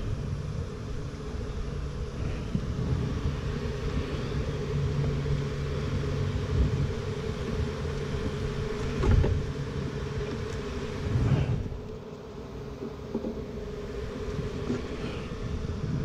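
Wooden hive frames being lifted and handled, with a knock about nine seconds in and another about two seconds later, over a steady low hum.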